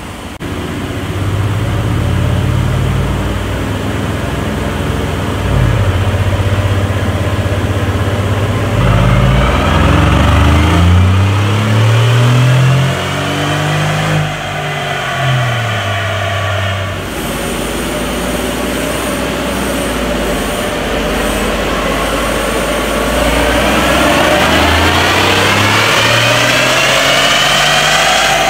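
Mercedes G500 4x4² twin-turbo 4.0-litre V8 with an Agency Power valved exhaust, pulling under load on a chassis dynamometer. The engine note and a higher whine rise as the revs climb, fall back past the middle, then build again near the end.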